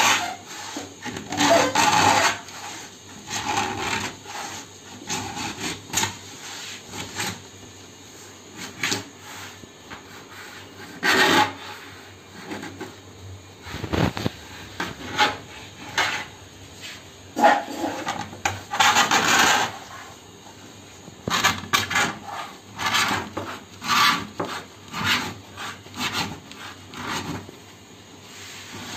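Sewing-machine needles in a circle cutter scraping round a sunmica laminate sheet to score out a circle, in uneven rasping strokes with a few louder ones.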